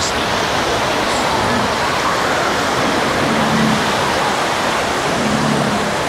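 Small Black Sea waves washing through the shallows at the shoreline: a steady, even rush of surf.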